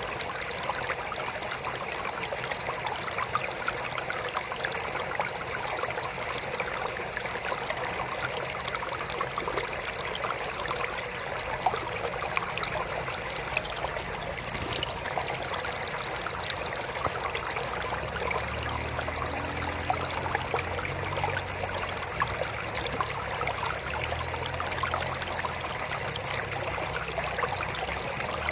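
Water trickling steadily into a mini aquarium, a continuous splashing patter with small drips. A faint low hum comes and goes in the second half.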